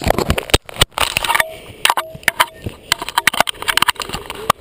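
Handling noise from a camera being fitted onto a chest harness: many quick knocks, clicks and rubbing sounds close to the microphone.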